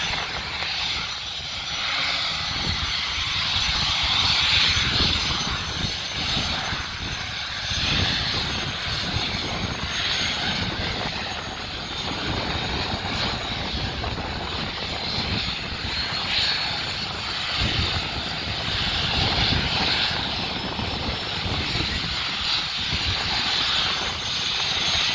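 Helicopter turbine engine running with its rotors turning during ground start-up and warm-up, a steady rushing noise with a faint high whine, before the blades begin to slap. Gusts of wind rumble on the microphone.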